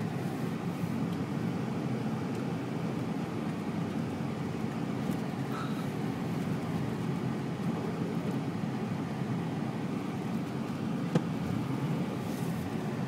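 Car driving on snow, heard from inside the cabin: a steady low engine and tyre rumble, with one sharp click about eleven seconds in.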